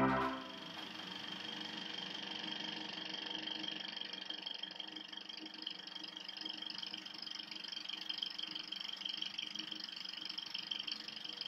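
The last piano chord dies away, then a steady mechanical whirring hum with a constant high whine runs on evenly.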